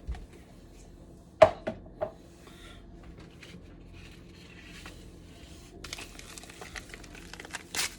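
Kitchen handling sounds: a sharp knock about a second and a half in, followed by two lighter knocks, then a dense crinkling rustle of packaging with small clicks near the end.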